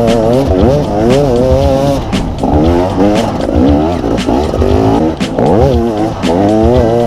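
KTM EXC 250 two-stroke enduro bike engine revving up and down while being ridden, its pitch rising and falling every second or so, with a couple of sharp climbs in the second half.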